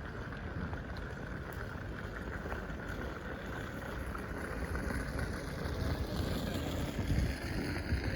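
City street ambience: a steady wash of distant traffic, with low wind buffeting on the microphone that grows stronger and gustier in the last few seconds.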